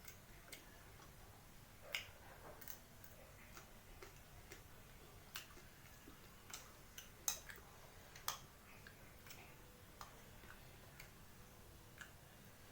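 Faint, irregular clicks and taps of eating from a plate, a dozen or so spread unevenly, with the sharpest about two seconds in and near the middle: utensils knocking on the plate while the fried rice and fish are eaten.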